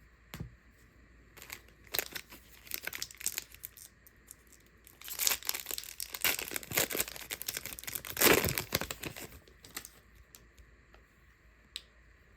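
Plastic trading card pack wrapper being torn open and crinkled by hand: a few light rustles, then a long stretch of tearing and crinkling loudest about eight seconds in.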